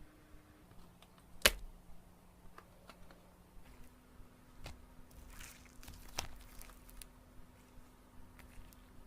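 Slime being handled, giving scattered soft clicks and crackles, with one sharper click about a second and a half in and a run of crinkly crackles later on.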